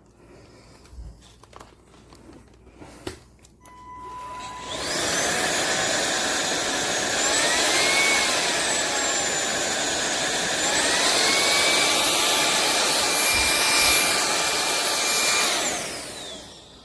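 INTETURE BP20 cordless stick vacuum switched on after a few faint clicks. Its motor whines up to speed and runs loud with a high whine that shifts in pitch a couple of times, then spins down near the end.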